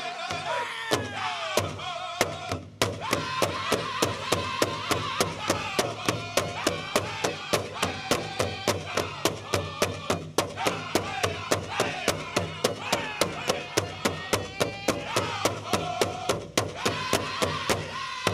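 Powwow drum group singing a chicken dance song: high voices over a big powwow drum struck in a steady, fast beat of about three strokes a second.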